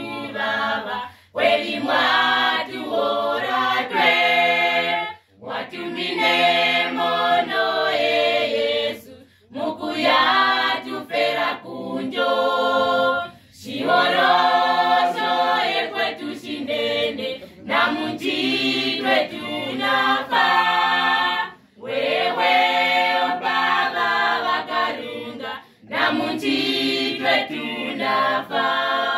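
Youth choir singing a cappella in several voice parts, in sung phrases of a few seconds each separated by brief breaks.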